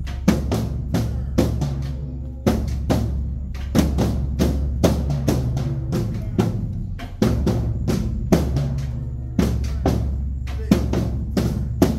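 High school marching band drumline playing a marching cadence: snare and bass drums beat out a steady, driving rhythm of sharp strikes over a low drum rumble.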